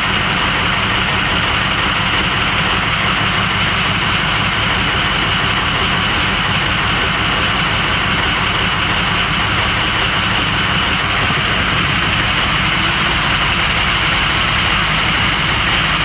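2005 Ford F-350's 6.0 L Power Stroke V8 turbo-diesel idling steadily. It has an injector misfire, with cylinders two and four weak on the power balance test.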